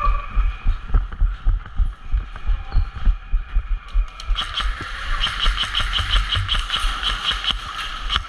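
Irregular low thuds of a body-worn camera jostling as the airsoft player moves on foot. From about four seconds in, a rapid run of sharp ticks, about five a second, comes in over a rising hiss.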